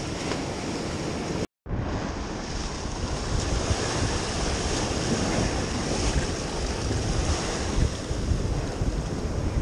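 Ocean surf washing and breaking against the rocks of a jetty, with wind buffeting the microphone. The sound cuts out completely for a moment about one and a half seconds in.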